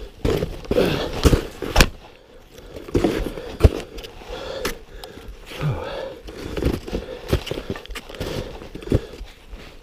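Snowshoe footsteps crunching and scraping in deep snow on a climb, in an uneven rhythm of sharp strikes.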